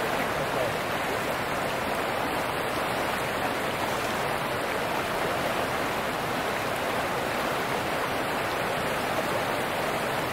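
A shallow river running over rocks and gravel: a steady, even rush of water.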